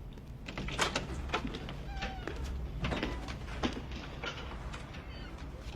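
Irregular light clicks and knocks, several a second, over a steady low hum.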